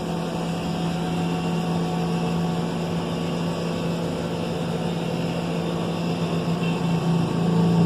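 Steady low electrical-mechanical hum from indoor machinery, holding one even pitch.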